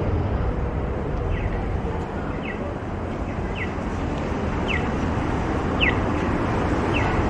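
Accessible pedestrian crossing signal chirping, a short falling chirp repeating evenly about once a second, over the steady rumble of city traffic.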